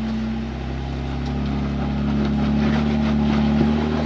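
A Jeep's engine running steadily while it crawls a loose, sandy obstacle, its note holding pitch and slowly getting louder, with a few light clicks over it.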